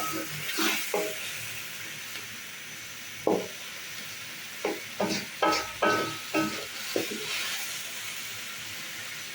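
Carrot halwa sizzling in a pan with a steady hiss while a spatula scrapes and stirs it: one stroke about three seconds in, then a quick run of about six strokes.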